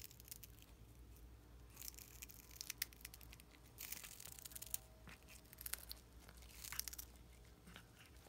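A cat biting and tearing at a whole dried capelin. The sound comes as several short, crunchy bursts of crackling with quiet gaps between them.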